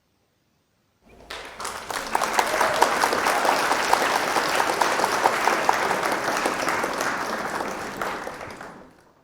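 Applause from a crowd clapping. It starts about a second in and fades out near the end.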